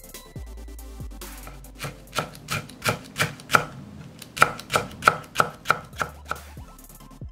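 Chef's knife slicing a halved green chili pepper into thin pieces on a wooden cutting board: a run of crisp chops, about three a second, starting about two seconds in and stopping near the end.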